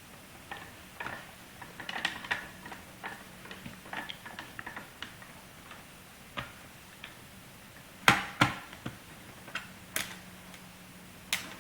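Small screwdriver backing a screw out of a laptop case: a string of light, irregular clicks and ticks, with a few sharper clicks near the end.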